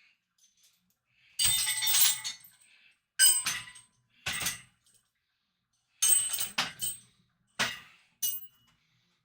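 Metal chains on a weighted bar jangling and clinking as the bar moves, in about six irregular bursts, each with a brief metallic ring.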